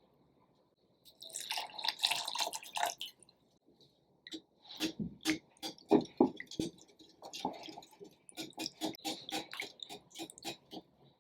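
Food-preparation sounds: a brief rustling scrape, then a run of quick, light knocks of a utensil, about three or four a second with short pauses.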